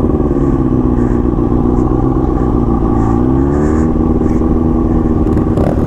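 Motorcycle engine running loudly at steady high revs, dipping briefly about three seconds in and then picking back up.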